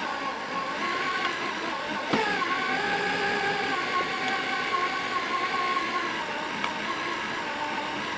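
An 8-amp corded electric drill turning a Wondermill Junior grain mill through a drill-bit adapter, grinding peanuts into peanut butter: a steady motor whine over grinding. A sharp click comes about two seconds in, after which the whine rises a little.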